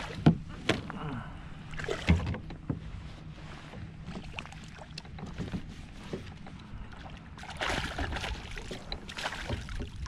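Sharp knocks and clatter of a landing net and fishing gear bumping the plastic hull of a kayak, the loudest just after the start. In the second half, two spells of splashing as a hooked trout thrashes at the surface and the net goes into the water.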